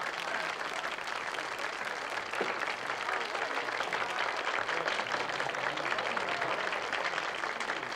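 A crowd applauding steadily, with a few voices calling out over the clapping.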